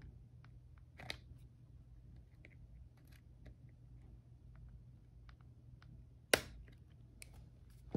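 Small metal clicks and scrapes as a steel E-clip is worked onto a shaft of a plastic RC gearbox, with one sharp click a little over six seconds in, over a faint low hum.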